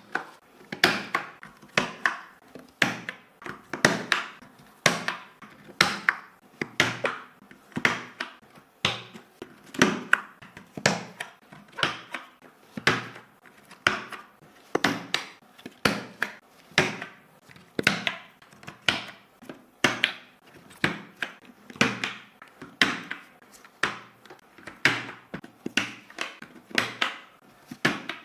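Sharp plastic clicks and knocks from a Fuhlen L411 computer keyboard being handled and worked on, coming in a steady run of about one or two a second, some in quick pairs.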